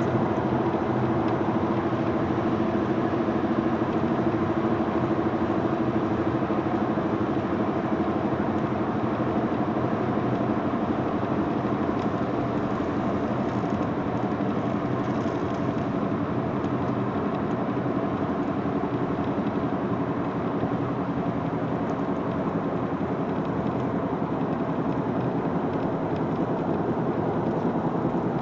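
Ford Mondeo Mk3 coasting in neutral at high speed and slowly losing speed: a steady rush of road, tyre and wind noise.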